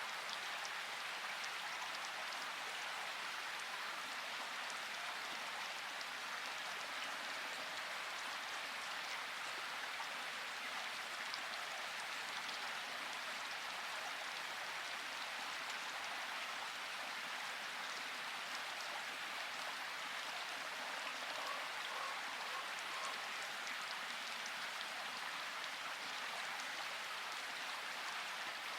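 Steady rain falling in a forest, an even patter of drops on leaves and ground. A few faint, short bird chirps come through about three-quarters of the way in.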